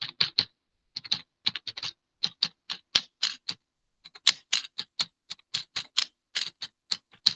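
Typing on a computer keyboard: a quick run of separate keystrokes, about four a second, with a short pause about four seconds in.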